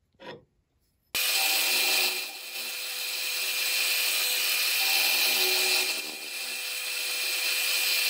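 Milling machine end mill cutting a block of cast aluminium, refacing its sides: a steady machine whine under the hiss of the cut. It starts abruptly about a second in and dips briefly twice.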